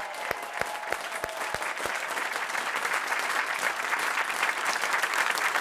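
Audience applause. It starts with a few separate claps, about three a second, then swells over the first couple of seconds into a full, steady round of clapping.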